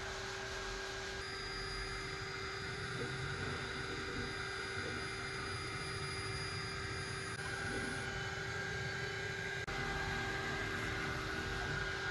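Laser cutter running while it cuts a gasket: a steady machine hum and fan noise holding several constant tones, shifting abruptly a few times.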